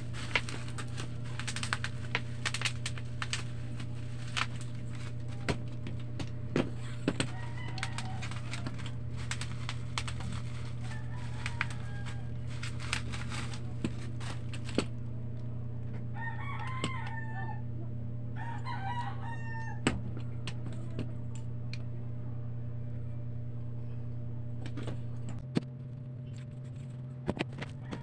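Rustling and clicking of packaging and a tripod being handled, over a steady low hum that stops near the end. About 16 and 19 seconds in, two drawn-out calls like a rooster crowing.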